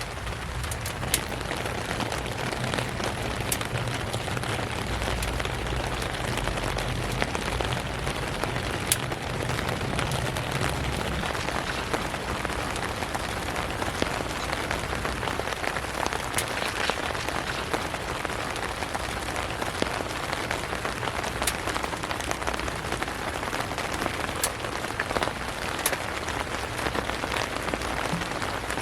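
Steady rainfall, an even hiss with scattered sharper drop impacts.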